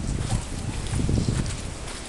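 Footsteps and low handling thumps of a camera carried close to the ground, with some light rustling.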